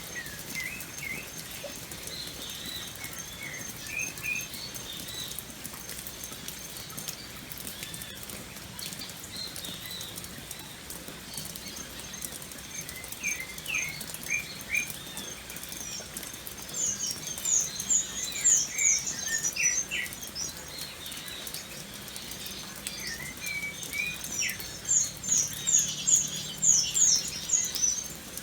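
Steady rain pattering, with birds calling over it: scattered short chirps, and two runs of quick, high notes, one about halfway through and one near the end.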